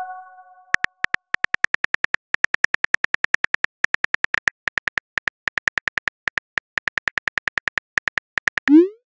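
Phone keyboard typing click sound effects: rapid short ticks, about eight a second with brief pauses, one per letter as a text message is typed out. A chime rings out and fades at the start, and a short rising whoosh near the end marks the message being sent.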